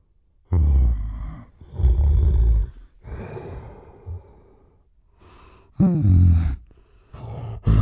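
Giant gorilla vocal sound effects: a run of about half a dozen heavy, breathy huffs and grunts, with a louder pitched grunt falling in pitch about six seconds in.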